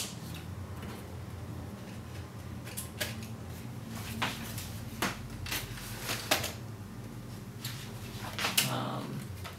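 Vintage Polaroid cameras being handled and set down on and taken from a shelf: a handful of light clicks and knocks scattered over several seconds, over a faint steady room hum.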